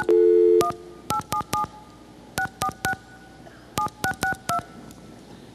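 Touch-tone desk telephone: a steady dial tone that stops about half a second in as the first key is pressed, then a phone number keyed in, about a dozen short DTMF beeps in three quick groups.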